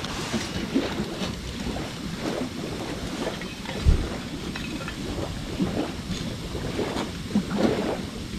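Wood campfire burning: a steady low rush with scattered sharp crackles and pops, and one dull low thump about four seconds in.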